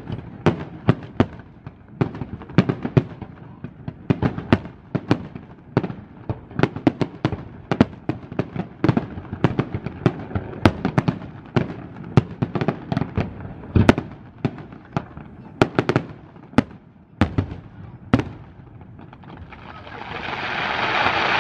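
Fireworks display: aerial shells bursting in a rapid, irregular series of sharp bangs, several a second at times. The bangs stop a few seconds before the end, and a steady rushing noise swells up in their place.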